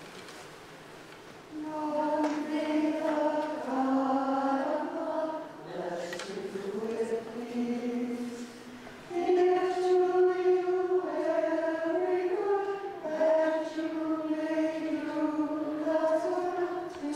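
Monastic community singing a blessing together, slow held notes in two phrases, beginning about a second and a half in with a short break midway.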